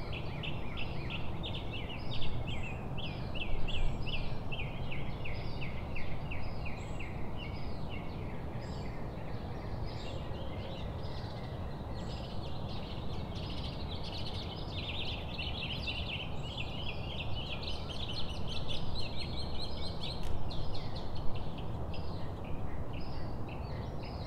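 A chorus of birds chattering with rapid, overlapping chirps, over a steady low rumble of wind noise.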